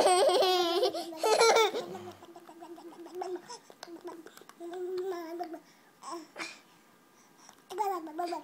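Baby holding a long vocal sound, its pitch warbling rapidly as a hand pats under her chin, then softer babbling coos.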